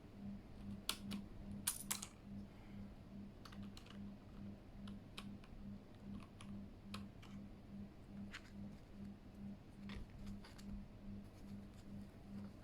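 Scattered key clicks on a Keychron K8 mechanical keyboard, a few quick presses in the first two seconds, then single keystrokes at irregular intervals.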